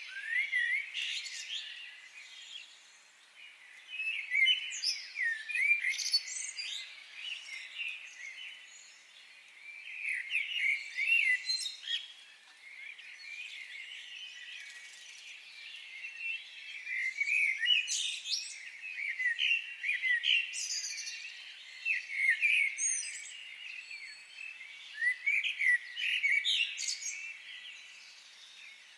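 Several songbirds singing and chirping in a forest, short quick notes in bouts that come and go every few seconds.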